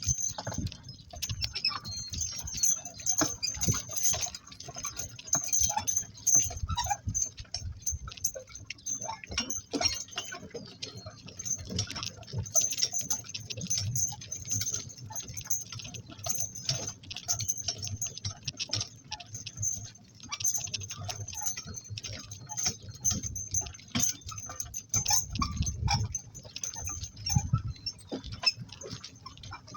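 Harness fittings on two donkeys hitched to a work cart, jingling and clinking, with irregular knocks and clicks from the cart and hooves.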